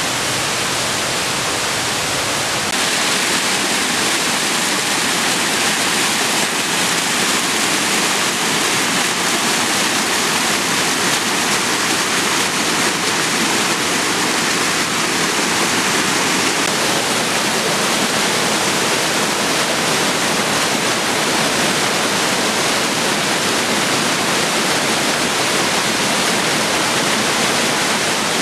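A waterfall swollen with spring snowmelt runoff, a steady loud rush of falling water that grows a little louder about three seconds in.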